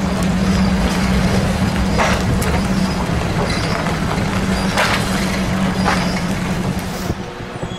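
A vehicle engine running with a steady low hum and road rumble while driving slowly, easing off near the end. A few sharp knocks or cracks stand out, about two seconds in and again about five seconds in.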